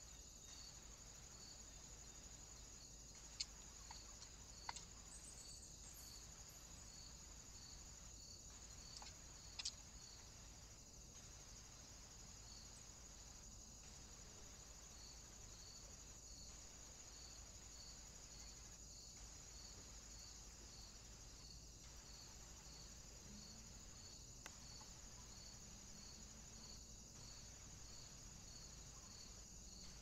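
Near silence: a faint, steady high-pitched drone with soft pips repeating about one and a half times a second, and a few faint clicks in the first third.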